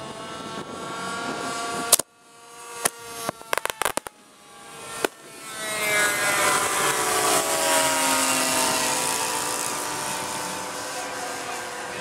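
Propeller engines of several radio-controlled model warbirds droning overhead. About two seconds in there is a sharp bang, and a string of sharp pops follows over the next three seconds from pyrotechnic charges. Then one model plane's engine passes low and loud, its pitch falling as it goes by.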